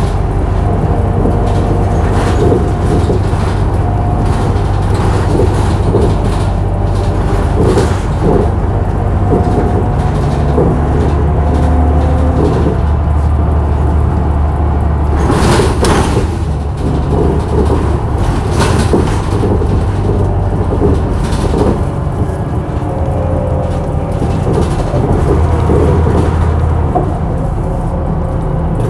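Scania L94UB bus engine running under way, with a loud whine from its ZF automatic gearbox that shifts in pitch, and steady rattling. A brief burst of noise comes about halfway through.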